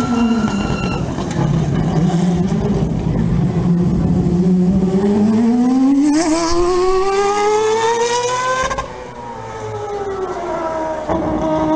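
Mazda 787B's four-rotor rotary engine racing past at close range. It runs at steady low revs at first, then accelerates with the note climbing steadily for about four seconds. The revs cut off sharply and the note falls away as the car pulls off.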